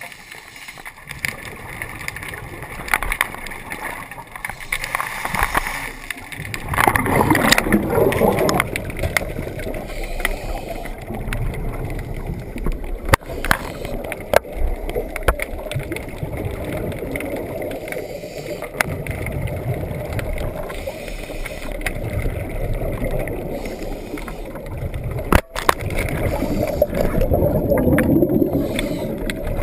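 Underwater sound through a camera housing: scuba regulator exhaust bubbles gurgling in bursts, loudest about a quarter of the way in and again near the end, with scattered sharp clicks and knocks from the housing being handled.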